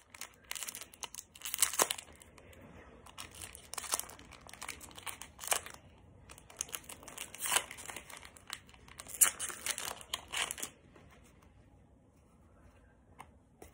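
Foil wrapper of a Pokémon trading-card booster pack crinkling and tearing as it is opened by hand, in irregular bursts of crackles that stop about ten and a half seconds in.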